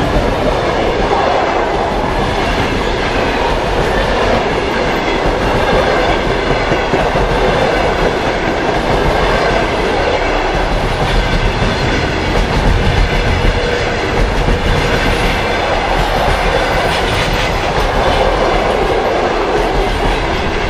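Passenger coaches of a locomotive-hauled train rolling past close by: a loud, steady rumble of wheels on rails.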